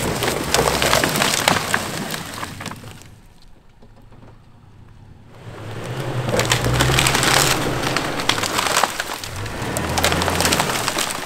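A downed tree being dragged off the road, its branches scraping, crackling and snapping in two long loud spells with a low steady hum underneath.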